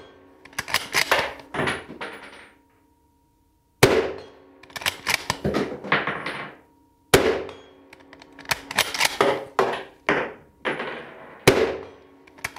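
M1903A3 Springfield bolt-action rifle firing .30-06 ball from its magazine: three sharp shots about three to four seconds apart. Between the shots come quick clacks of the bolt being worked to feed the next round from the magazine.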